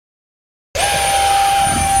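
Electric ducted fan of a 64 mm RC jet running with a steady high whine over a rush of air noise. It starts suddenly about a second in, and its pitch holds nearly level.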